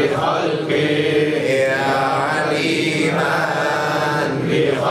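A man's voice chanting an Arabic dhikr litany in a slow, drawn-out melody, holding the word 'bi-khalqihi' and sliding between notes.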